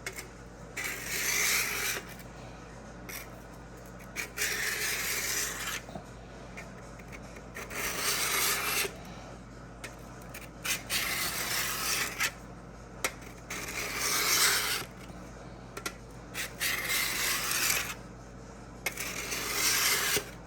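Steel drawknife blade stroked back and forth across a diamond sharpening block while being sharpened: about seven long scraping strokes, each a second or so, with short pauses between.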